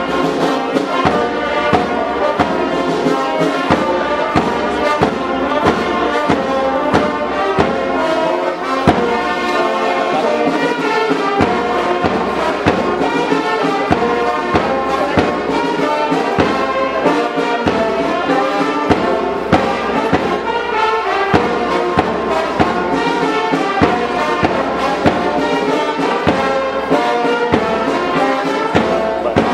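Brass band playing, with trombones and trumpets over a steady drum beat.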